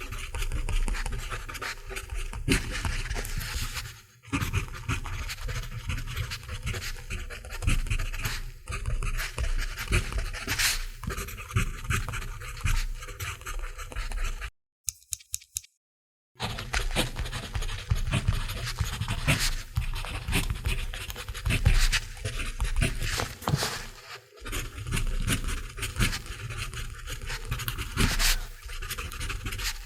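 Mechanical pencil writing on paper: continuous scratching of the lead in quick, irregular strokes, with a short silent break near the middle.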